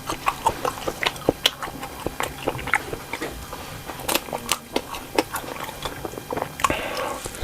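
Close-miked chewing of cocktail sausages in green chili sauce: an irregular run of short mouth clicks and bites, several a second.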